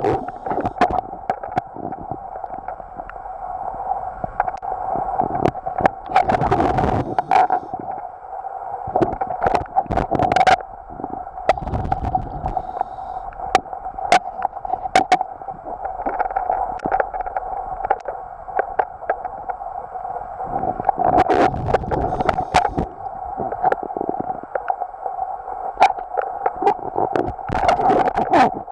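Water gurgling and sloshing under a steady hum, with scattered sharp clicks and knocks.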